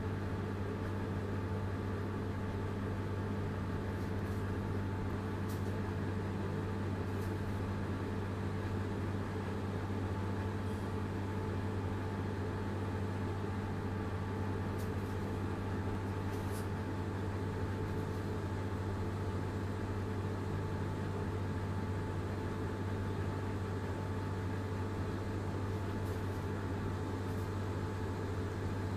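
A steady low mechanical hum from a running motor or appliance, even in level throughout, with a few faint, brief ticks on top.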